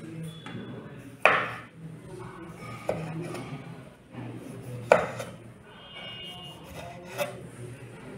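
Chef's knife slicing through a red vegetable on a wooden cutting board: soft cutting strokes, with four sharp knocks where the blade strikes the board, spaced a second and a half to two seconds apart.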